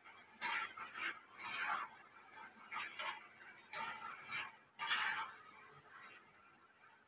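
Spatula scraping and stirring chilli chicken in a thick gravy around a wok: a string of short, irregular scrapes against the pan, thinning out after about five seconds.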